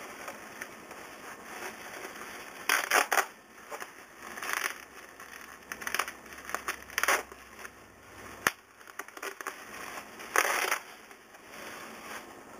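Plastic bubble wrap crinkling and rustling in irregular bursts as it is pulled apart and unwrapped by hand, with one sharp click a little past the middle.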